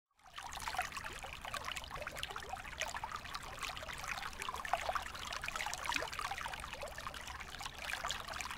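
Aquarium water trickling and splashing steadily, with many small crackling pops from bubbles and falling water, cutting back in after a momentary gap at the very start.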